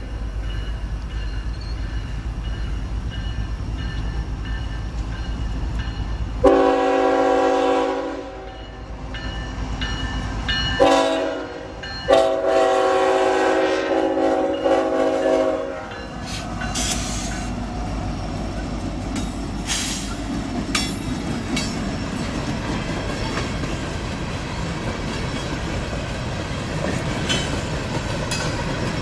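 Freight train horn sounding for the crossing: a long blast about six seconds in, a short one about eleven seconds in, then a long one of about four seconds. Then the diesel locomotives and freight cars rumble through the crossing, with clicks and clatter from the wheels.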